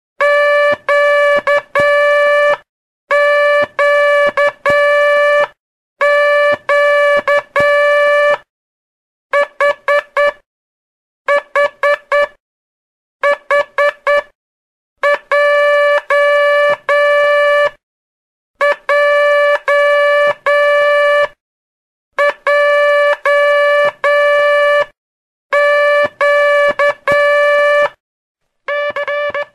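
Morse code practice sent as a keyed, buzzy mid-pitched tone, in groups of short dots and long dashes with a pause after each character. Several of the groups, about nine to fourteen seconds in, are four quick dots: the letter H.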